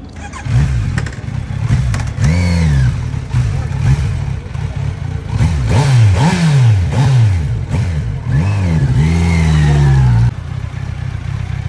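Kawasaki Z900's 948 cc inline-four, on its stock exhaust, revved hard over and over, the revs climbing and falling about six times, then held high before dropping off sharply as the bike pulls away.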